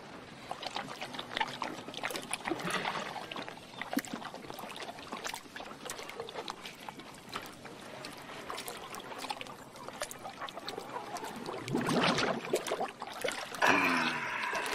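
Water splashing and trickling, with many small scattered knocks and clicks and a louder splash near the end. Music with a held, pitched note comes in just before the end.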